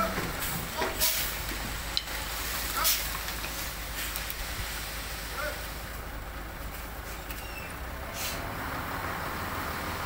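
Dump truck's engine running steadily as its raised bed tips out a load of soil, with a few sharp knocks in the first three seconds and once more near the end.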